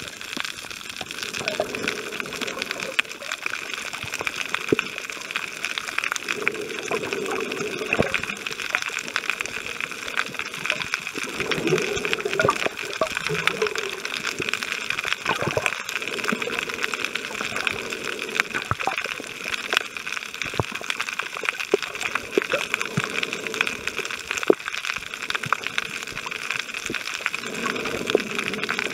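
Underwater sound picked up by a camera held below the surface while snorkeling: a steady watery hiss full of small scattered clicks and crackles, with low rushing swells of water that come and go every few seconds.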